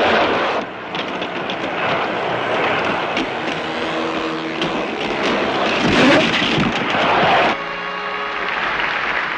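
A big arena crowd roaring, over the rolling of roller skates on the track and sharp knocks of players colliding, with a motorcycle engine revving about six seconds in.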